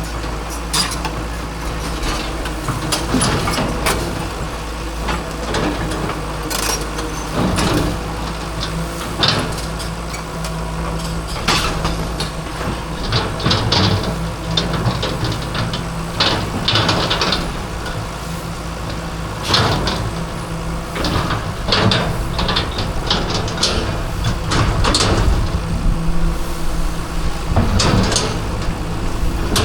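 Hydraulic excavator's diesel engine running steadily, with repeated knocks, crunches and scrapes scattered throughout as the machine breaks up a concrete fence.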